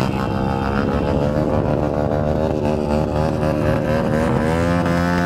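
Motorcycle engines running at low speed, a steady drone that wavers gently and rises in pitch near the end as the throttle opens.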